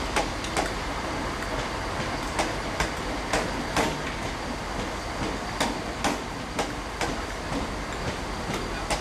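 A Northern multiple-unit passenger train rolling past over pointwork: a steady rail rumble broken by sharp wheel clacks over the rail joints, about one or two a second at uneven spacing.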